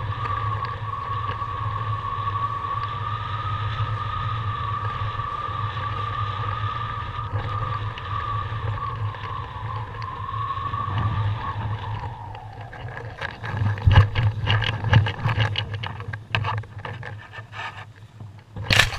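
Airflow over a paragliding chase camera in flight: a steady whistle over a low hum, the whistle sagging in pitch and fading about twelve seconds in as the glider slows to land. Then irregular knocks and rustles as the camera drops onto and drags through the grass, and one loud bump near the end.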